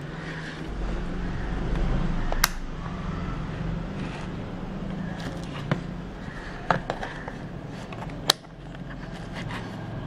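Several sharp clicks, mostly between about six and eight and a half seconds in, from a handheld digital multimeter's rotary selector dial being turned and handled, over a steady low background rumble.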